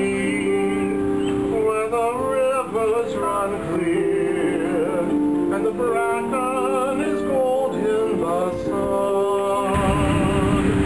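A man singing with vibrato to his own harp, the plucked harp notes ringing on under the voice. Near the end a steady rushing noise comes in under the music.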